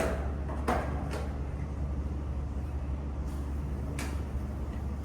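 A few sharp clicks and knocks, four in all (three in the first second or so and one about four seconds in), from a glue-pull dent tensioner being set and tightened by hand on a car panel, over a steady low hum.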